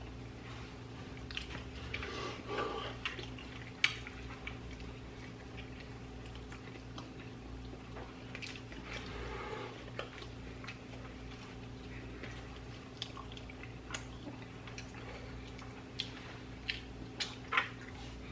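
A person chewing food between bites, with soft mouth noises and scattered small clicks, over a steady low electrical hum.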